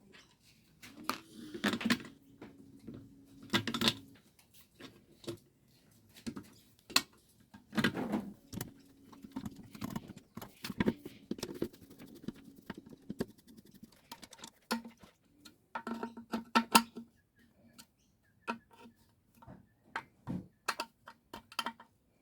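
Small carburetor parts being handled and fitted by hand: irregular clicks, taps and light knocks of metal and plastic pieces as the Pulsa-Jet carburetor and its diaphragm and tank are put back together.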